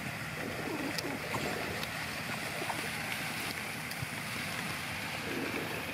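Steady outdoor background noise, an even rushing hiss, with a few faint light clicks.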